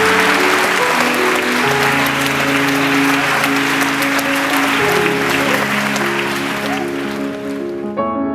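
A large audience applauding, a dense crackle of many hands clapping over background music with long held notes. The applause fades out near the end, leaving the music alone.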